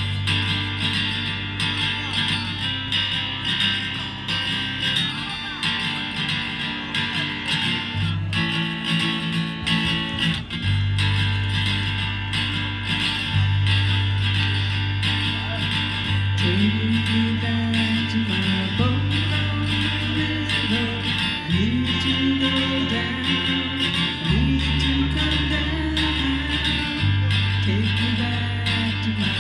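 Live acoustic guitar strumming with a low bass line underneath; a singing voice comes in a little past halfway.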